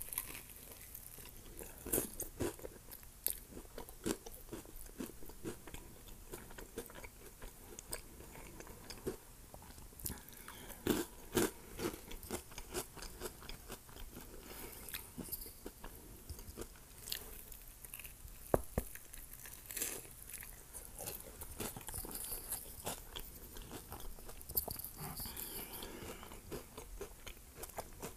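Close-miked biting and chewing of a burrito crusted in crushed Flamin' Hot Cheetos: an irregular run of crunches and mouth clicks, with a few sharper crunches standing out.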